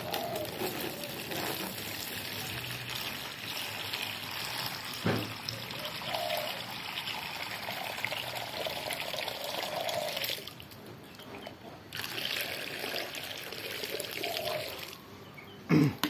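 Water poured from a plastic jug into a plastic bath tray, a steady trickling splash for about ten seconds, a break of under two seconds, then a second, shorter pour.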